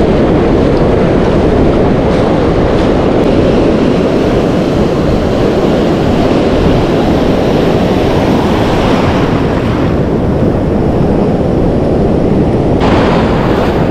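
Wind buffeting the microphone over the rush of breaking surf: a loud, steady rumble that grows brighter near the end.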